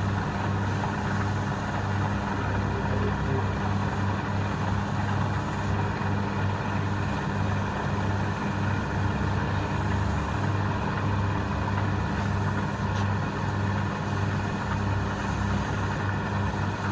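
Wood lathe running steadily, its motor humming at a constant pitch over a haze of machine noise.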